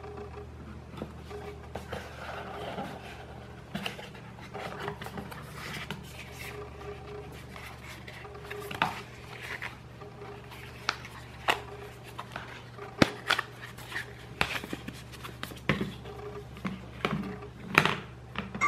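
Hands handling cardboard and paper packaging: rustling and scraping with a string of sharp clicks and taps as the Chromecast 2's insert and cable holder are worked free, the clicks more frequent and louder in the second half. A steady low hum runs underneath.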